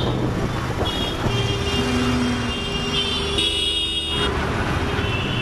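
City road traffic heard from a moving motorbike: steady engine and road noise, with vehicle horns honking in several overlapping blasts, the loudest about three to four seconds in.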